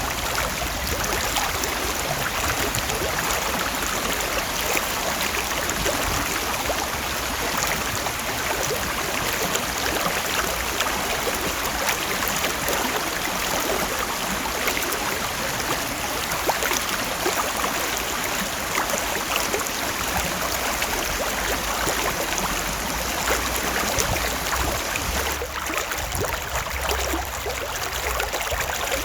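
Stream water flowing steadily, a dense, even splashing.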